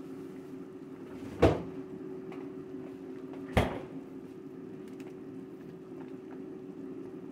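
Steady low hum in a kitchen, broken by two sharp knocks about two seconds apart, each dying away quickly.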